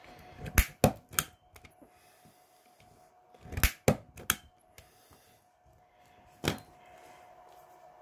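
Punch-down tool clicking sharply as it pushes cable wires down into an RJ45 socket's terminals and its blade cuts off the wire ends. Seven clicks in three groups: three within about the first second, three about three and a half to four seconds in, and one more past six seconds.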